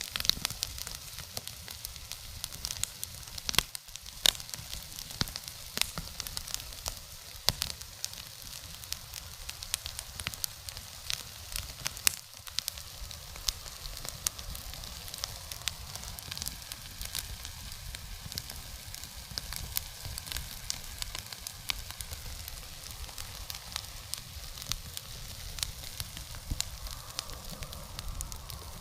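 Fire burning beehive parts and beeswax, crackling steadily with frequent sharp irregular pops and a sizzle of burning wax.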